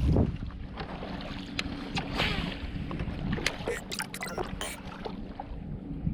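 A string of clicks and knocks from handling on a fishing kayak, with a short rush of noise about two seconds in, over wind on the microphone.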